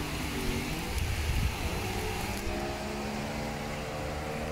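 Outboard motor of an RNLI D-class inflatable lifeboat speeding up as the boat pulls away. Its pitch rises over the first couple of seconds and then holds steady, over a low rumbling noise.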